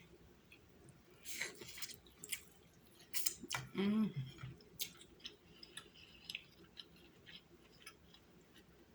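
Close-miked eating sounds of king crab legs with butter sauce: scattered wet clicks, smacks and crisp ticks of chewing and handling the meat, with a short hummed "mm" about four seconds in.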